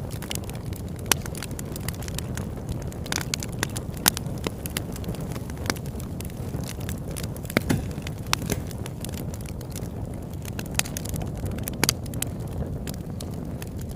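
Campfire burning and crackling: frequent sharp pops and snaps at irregular moments over a steady low rush of the flames.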